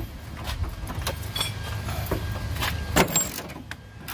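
Metal hand tools clicking and knocking against parts in a car's engine bay, with a sharper knock about three seconds in, over a low steady rumble.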